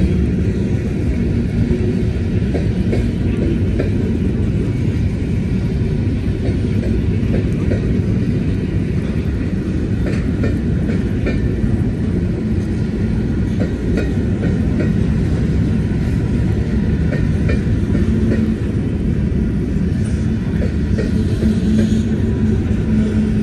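Freight train of covered hopper cars rolling past: a steady rumble of steel wheels on rail, with scattered clicks.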